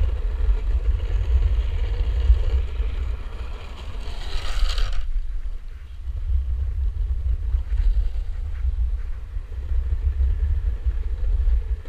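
Wind buffeting the camera microphone of a longboarder riding downhill at speed, over the steady rolling noise of the wheels on asphalt. About four seconds in, a brighter hiss rises for a second and cuts off suddenly. After that the wheel noise is lower, and the wind rumble carries on.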